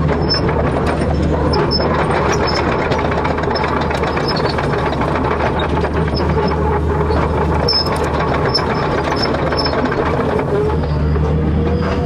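Excavator's diesel engine running steadily, with a thin wavering squeal in the second half.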